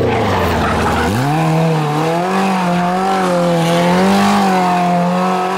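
Off-road kart's engine revving hard as the kart slides around in circles: the revs sag, then climb sharply about a second in and are held high, wavering up and down with the throttle.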